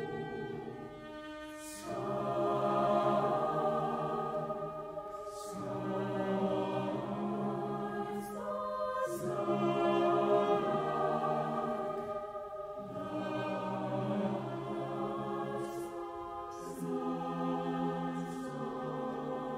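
Mixed choir of men's and women's voices singing slow, sustained chords in phrases a few seconds long, with short breaks between phrases.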